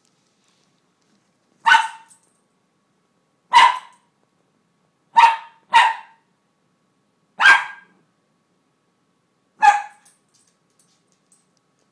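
Cairn terrier barking: six single sharp barks at irregular intervals, two of them in quick succession about halfway through.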